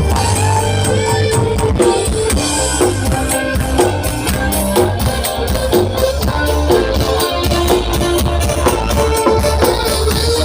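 Loud music with heavy bass and a steady drum beat, blasting from a giant 'horeg' carnival sound system.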